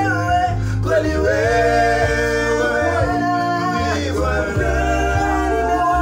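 Male voices singing a Swahili gospel song over an instrumental backing with a steady bass line.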